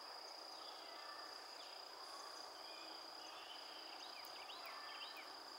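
Faint early-morning outdoor ambience: insects keep up a steady, high-pitched drone, with scattered short, faint chirps over it.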